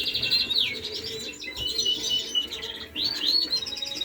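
Norwich canary cock singing hard: a continuous, varied song of fast rolling trills and repeated notes, each phrase a quick run of identical notes. It is the song of a cock bird in full breeding condition.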